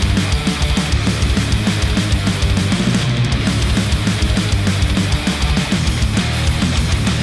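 Heavy rock music with guitar and a fast, steady run of low bass notes, played through headphones and picked up by microphones at the earcups.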